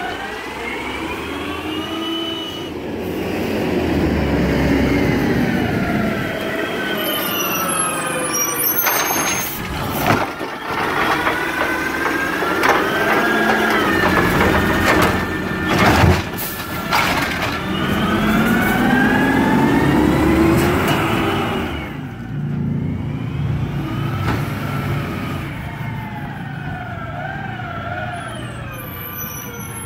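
Garbage truck working, its engine and hydraulic pump whining and repeatedly rising and falling in pitch over several seconds at a time. A few sharp metal clanks come about a third and halfway through.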